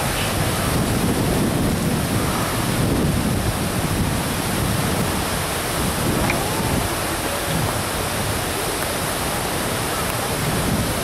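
Steady rushing noise of wind buffeting the microphone, with faint crowd voices underneath.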